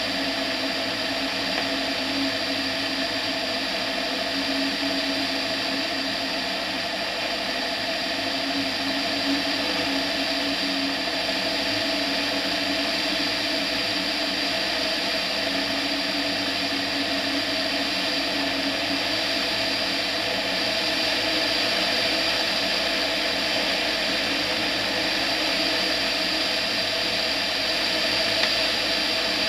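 Tetras ultralight aircraft's engine and propeller running steadily in flight, a constant drone with a hiss of rushing air, recorded close to the propeller on the outside of the airframe.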